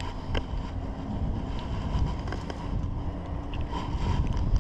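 Low, steady rumble of wind buffeting the microphone, with a faint steady hum underneath and a few light clicks.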